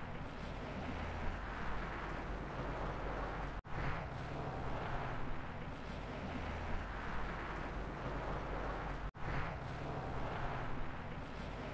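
Steady city street traffic ambience: a low rumble under an even hiss, cutting out for an instant twice, about a third and three quarters of the way through.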